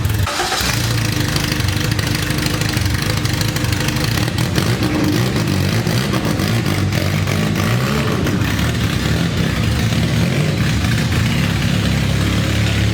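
Honda Integra's swapped B20 VTEC four-cylinder engine running steadily.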